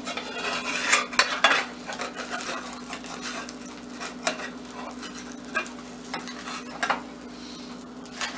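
Spatula scraping and tapping against a cast iron pan as an omelet is worked loose and flipped, over a low sizzle of butter. The scrapes come thick in the first second or so, then only now and then.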